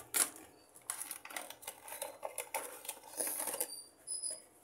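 Packaging being handled and opened during an unboxing, giving an irregular run of crackles and clicks, loudest a little after three seconds, with a brief high squeak about four seconds in.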